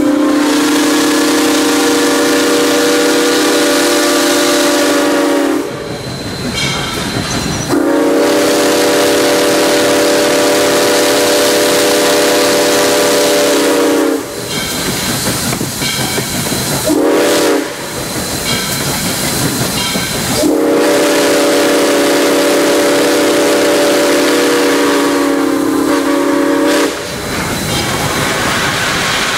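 Southern Railway 630's six-chime steam whistle blowing long, long, short, long, the grade-crossing signal, heard from inside the cab. A steady hiss from the running steam locomotive runs underneath.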